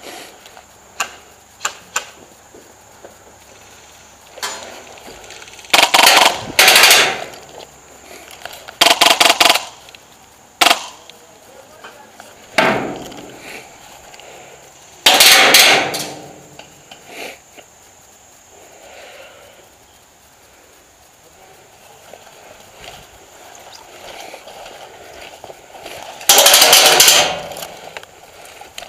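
Airsoft guns firing about four loud full-auto bursts of around a second each; the second is a fast rattle of evenly spaced shots. Single sharp clicks come in between.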